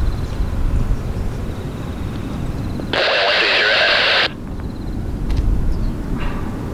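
Steady low rumble of outdoor background noise, broken about three seconds in by a loud burst of radio static that lasts about a second and a half and cuts off suddenly.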